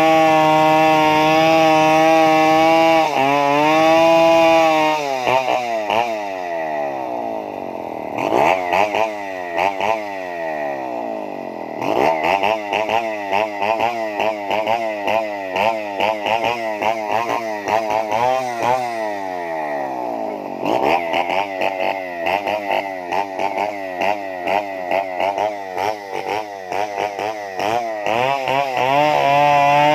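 Stihl 070 two-stroke chainsaw engine running at a steady speed, then about five seconds in its pitch starts warbling rapidly up and down and keeps hunting like that until it settles back to a steady note near the end. This is the odd sound the owner calls funny.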